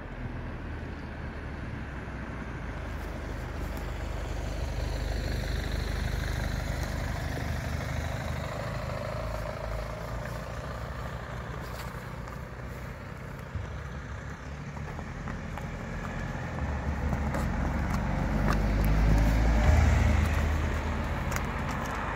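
Cars driving past on a tarmac road, engine and tyre noise swelling as each one nears. A lighter pass comes about five seconds in, and a louder, closer one about twenty seconds in.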